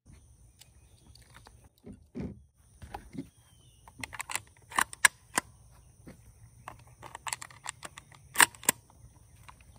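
Shotgun shells being pushed one by one into the tube magazine of a Mossberg 500 pump shotgun: a soft thump about two seconds in, then sharp metallic clicks in quick pairs as each shell snaps past the shell stop, the loudest about five and eight and a half seconds in.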